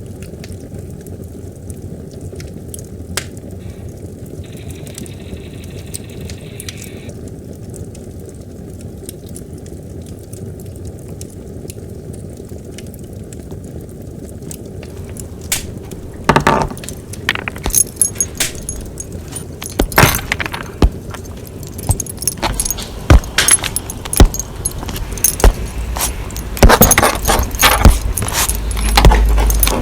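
A steady low rumble. From about halfway in, a long run of sharp metallic clinks and jingling joins it and grows louder toward the end.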